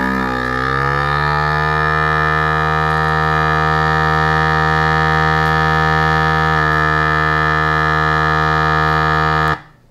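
Countertop vacuum sealer's pump running through a vacuum-and-seal cycle on a bag of salmon steaks: a steady hum that rises slightly in pitch at first, then holds and cuts off abruptly near the end as the cycle finishes.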